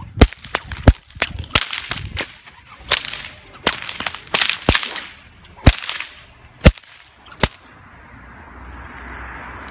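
A 275 paracord stock whip cracked over and over, about a dozen sharp cracks at an uneven pace of one or two a second, with the swish of the swinging thong between them. The cracking stops about seven and a half seconds in, and a rushing noise of an approaching vehicle swells near the end.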